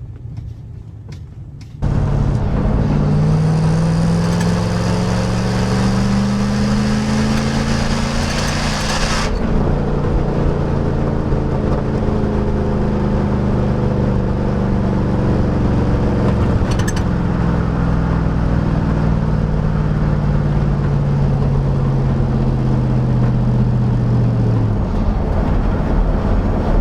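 5.3-litre LM7 V8 pickup exhaust through a single-chamber performance muffler, cutting in suddenly about two seconds in. The engine note climbs steadily under acceleration, holds, and falls away near the end as the truck decelerates.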